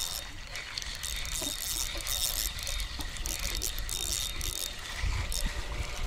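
Fishing reel being cranked, its gears whirring and clicking as line is wound in.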